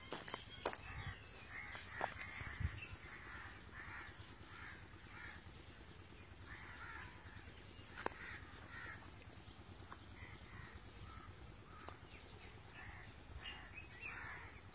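Birds calling outdoors: harsh, rasping calls repeated in quick bunches, with a few sharp clicks near the start and about eight seconds in.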